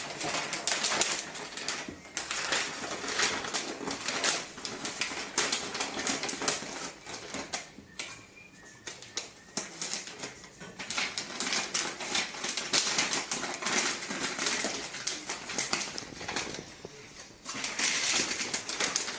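Tissue paper and gift-wrapping paper crinkling and rustling as it is handled and folded around two cats: runs of quick, dense crackles that ease off briefly about eight seconds in.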